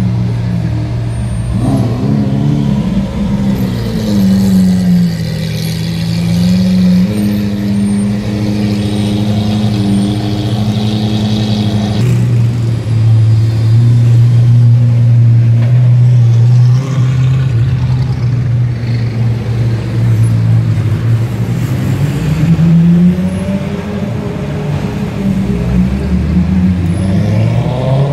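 Supercar engines idling and revving in slow traffic, their pitch falling and rising as the cars ease off and pull away. After a change about halfway through, a steady, strong low engine note takes over, and rising revs return near the end.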